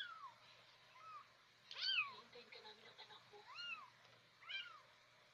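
Young kittens mewing: a string of about five short, high, thin cries that rise and fall in pitch, roughly one a second, some faint.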